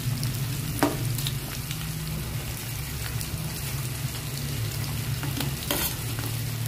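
Onions and ginger sizzling in hot oil in a wok while a spatula stirs them, with a sharp knock about a second in. Near the end, halved tomatoes drop into the oil with a short crash. A steady low hum runs underneath.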